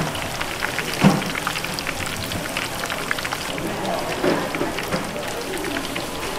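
Tempura frying in a deep fryer of hot oil, a steady dense crackling sizzle, with a single knock about a second in.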